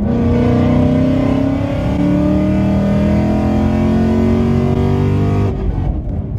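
2018 Ford Mustang GT's 5.0 V8 with a ghost cam, catless headers, X-pipe and Roush single-tip exhaust, accelerating hard, heard from inside the cabin. The pitch rises, drops at an upshift about two seconds in, rises again, then falls away as the throttle is lifted near the end.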